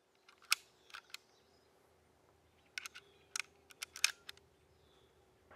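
Sharp mechanical clicks, a few about half a second to a second in, then a quicker run of clicks from about three to four and a half seconds in, over a faint steady hum.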